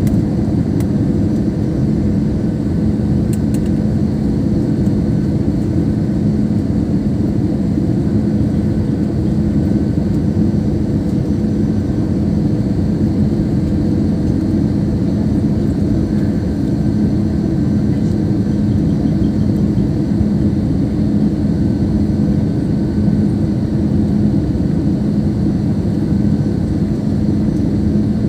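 Airbus A320 cabin noise: the steady rush of the jet engines and airflow, with a low constant hum running under it.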